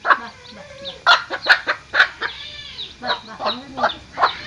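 A mother hen clucking in a quick string of short calls while her chicks cheep in thin, high peeps around her as they feed on scattered rice grains.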